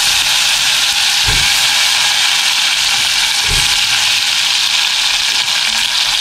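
Hot sesame oil sizzling steadily in a steel pot as stuffed brinjals fry in it, with two soft low thumps about a second and three and a half seconds in as more brinjals are dropped in.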